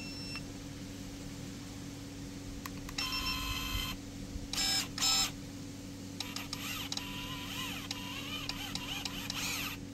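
Kebtek KTE-35 cordless pruning shears' brushless motor whining as the blade is worked open and shut: a run of about a second, two short bursts, then a longer run whose pitch wavers up and down as the progressive trigger is eased in and out.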